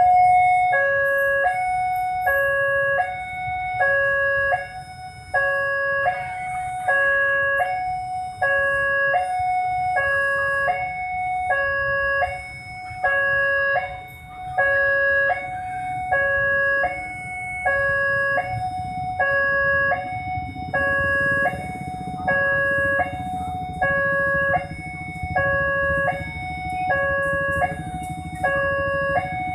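Railway level-crossing warning alarm sounding a steady electronic two-tone chime, alternating high and low notes about twice a second, as a train approaches. A low rumble from the approaching diesel locomotive grows under it in the last third.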